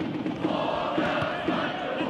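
Crowd of spectators chanting steadily in a sports hall, with a few short knocks of the ball being kicked on the hard court.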